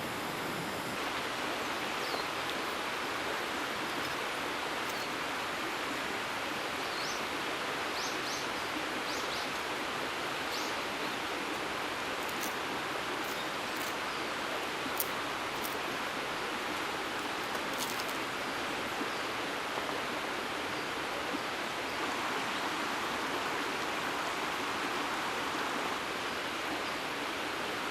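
Steady, even rushing outdoor noise, with a few faint, short, high chirps about a third of the way in.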